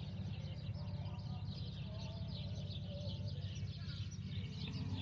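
Many small birds chirping continuously, quick short chirps, over a steady low hum.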